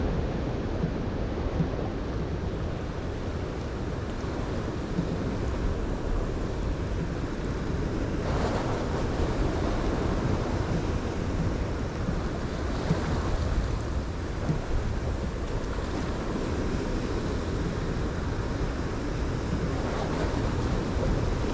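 Wind on the microphone over sea waves washing, a steady rushing noise with a few louder swells.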